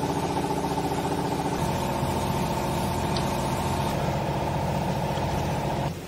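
Vertical clothing baler's hydraulic power pack, an electric motor driving the pump, running steadily with an even hum and whine. It starts just before and cuts off sharply shortly before the end.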